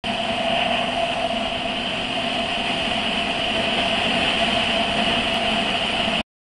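Motorbike riding at a steady speed: an even mix of engine and wind rush picked up by a handlebar-mounted camera, with no change in pitch. It cuts off suddenly near the end.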